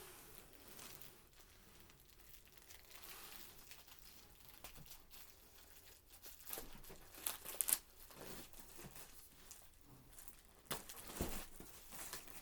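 Plastic wrapping crinkling and tearing faintly as it is peeled off a pack of precut quilt fabric squares, in irregular rustling bursts that are loudest a little past halfway, with a soft knock near the end.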